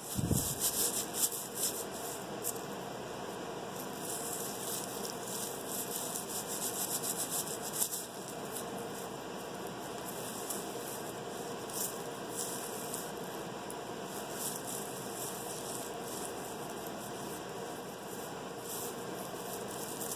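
Garlic cloves being crushed and rubbed between bare feet on a cloth: irregular crackling and rustling of the dry papery skins over a rubbing hiss, busiest in the first several seconds and sparser after.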